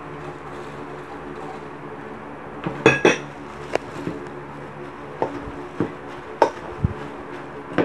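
Stainless steel mixing bowl knocking and clinking several times while ground-meat stuffing is mixed in it by hand; the loudest knocks ring briefly about three seconds in. A steady hum runs underneath.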